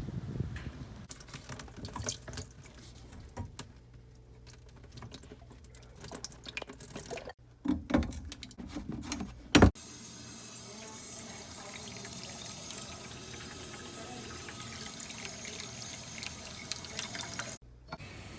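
Water running steadily from a tap or open line, after a stretch of clicks and handling knocks that ends with two loud knocks.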